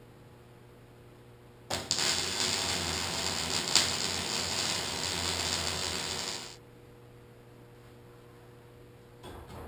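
MIG welding arc crackling as a bead is run on a steel pipe joint. It starts sharply about two seconds in and stops after about five seconds.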